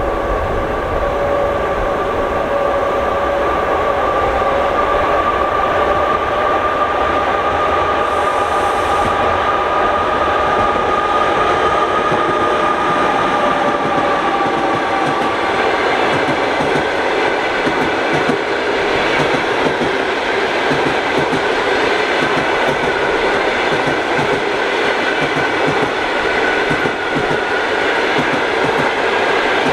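Passenger train with an EP2K electric locomotive running on the line. A high steady whine falls slightly in pitch through the first half, then the wheels take up a rhythmic clickety-clack over the rail joints.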